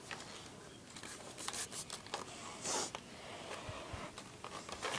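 Handling noise of gear and fabric being moved about: rustling with scattered small clicks, and two short hissing scrapes about one and a half and nearly three seconds in.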